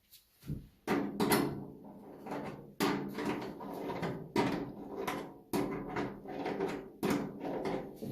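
Repeated scraping strokes on metal parts of a dryer, one about every second and a half. Each starts sharply and slides on for about a second with a faint metallic ring.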